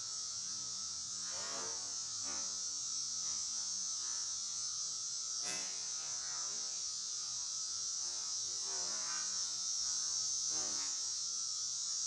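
Honeybees buzzing around an open hive frame, several bees passing close with brief sweeping rises and falls in pitch, over a steady high hiss.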